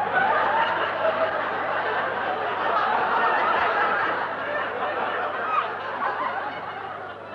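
Studio audience laughter, heard through an old off-air television recording: the laughter breaks out all at once, holds for a few seconds and then slowly dies away.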